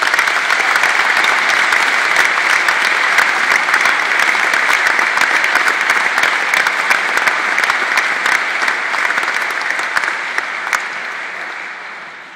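A large audience applauding steadily, the clapping dying away over the last couple of seconds.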